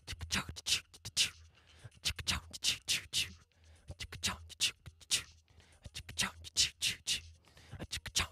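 Rhythmic vocal percussion: short, breathy mouth clicks and hisses in a loose groove, over a faint steady low hum.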